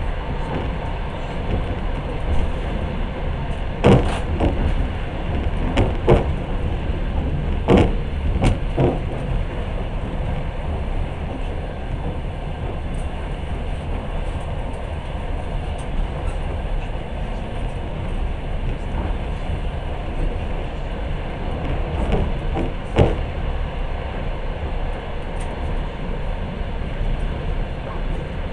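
Passenger train running at speed, heard from inside the carriage: a steady rumble of wheels on rails. A handful of sharp knocks come in the first nine seconds, and one more about five seconds before the end.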